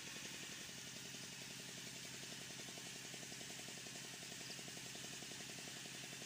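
A faint engine idling steadily in the background: a fast, even throb over a low hum, with a high hiss above it.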